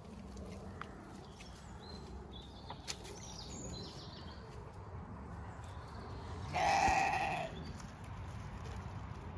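A Zwartbles ram bleats once, a loud call just under a second long about two-thirds of the way in, over a low steady outdoor rumble.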